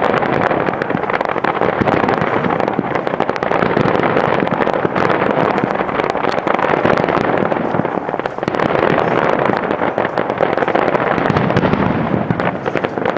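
Aerial fireworks barrage: many shells bursting at once, making a dense, unbroken run of overlapping bangs and crackling.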